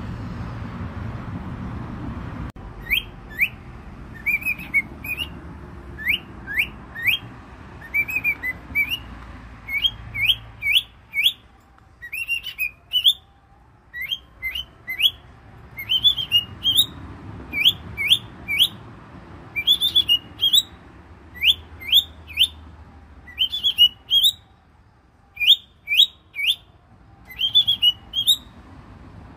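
Cockatiels calling: short rising chirps, mostly in quick pairs or threes, repeated about once a second. They begin about two and a half seconds in, when a low rumble stops.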